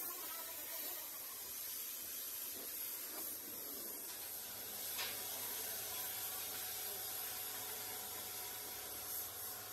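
Air-powered gravity-feed paint spray gun hissing steadily as it sprays paint onto a sheet-steel panel.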